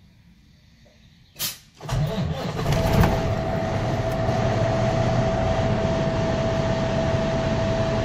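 Cummins ISX straight-six diesel in a truck starting up for the first time after a turbocharger replacement. A short sharp sound about a second and a half in, then the engine fires and settles into a steady idle, with a constant high tone running through it.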